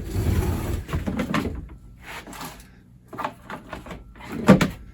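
Handling and rummaging noises: a rustle at first, then several light knocks and clicks, with a louder thump near the end.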